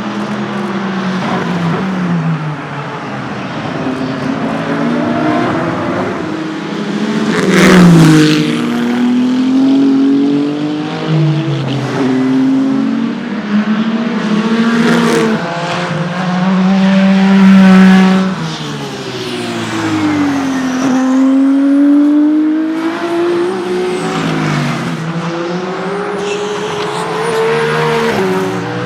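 Endurance race cars (WEC Hypercars and LMGT3 cars) running at speed, several passing close one after another, their engine notes climbing and dropping through gear changes. The loudest passes come about 8 and 18 seconds in.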